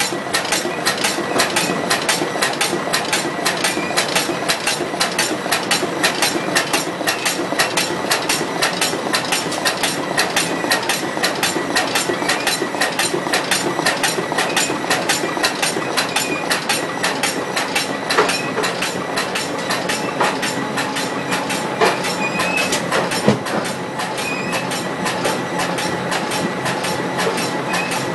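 Corrugated-box crash-lock-bottom folder-gluer machine running, its mechanism making a fast, even clatter.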